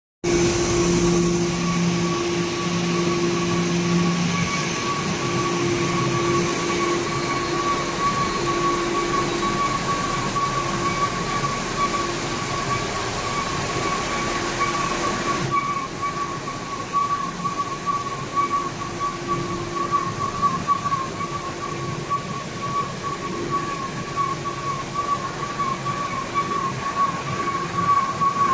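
Label printing presses and their unwinders and rewinders running: a steady mechanical din with a constant high whine. Lower hums pulse on and off during the first half, and the hiss thins out about halfway through.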